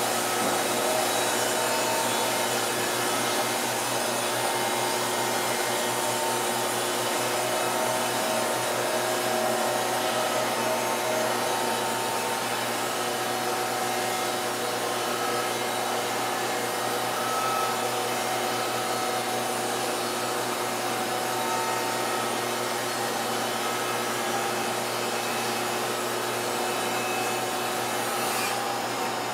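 Steady rushing drone of a Wood-Mizer LT50 band sawmill cutting a log under load, with its dust collection blower running. The high hiss eases off near the end.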